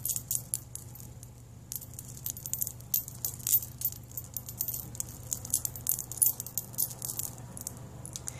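Stacked wire bangle bracelets with dangling metal charms jingling and clinking as the wrist is shaken close to the microphone: a quick, irregular run of light metallic clicks, with a brief lull about a second in.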